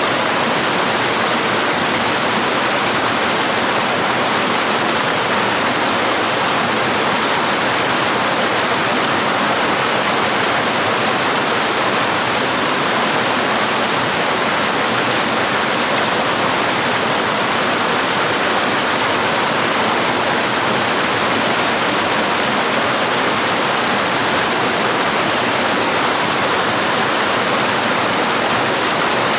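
Waterfall and stream water flowing, a steady rushing noise without change.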